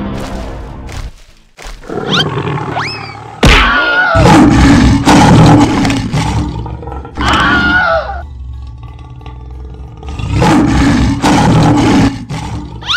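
Sound-effect lion roars and growls, four or so loud ones spaced a couple of seconds apart, with sharp hits between them.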